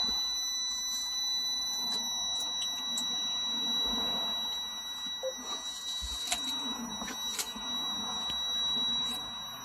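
A steady, high-pitched electronic tone held unchanging, over a low background murmur with a few faint clicks.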